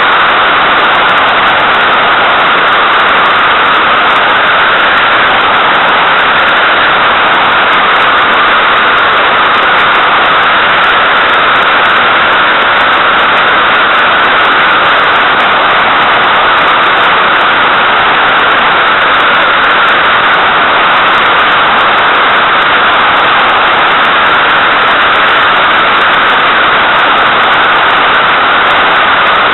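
Loud, steady rush of airflow over a mini camera mounted on the outside of a Puchacz glider in flight. It is an even hiss with no engine note.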